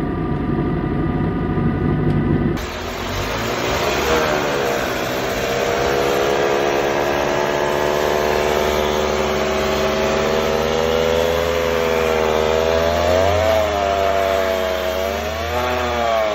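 Manual transmission in neutral with the engine running, giving a steady whining drone that could be a damaged internal bearing. About two and a half seconds in the sound changes to a second example, whose whine rises gently in pitch and wavers a few times.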